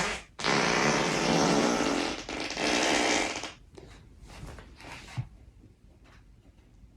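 Long, loud farts: one trails off just after the start, then a second lasts about three seconds, followed by faint small noises.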